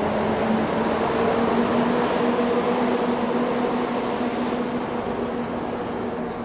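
PKP EU07 electric locomotive pulling a passenger train slowly out of the station: a steady electrical hum from the locomotive over the rumble of rolling wheels, loudest about two seconds in. The hum stops near the end as the locomotive moves on, leaving the noise of the coaches rolling past.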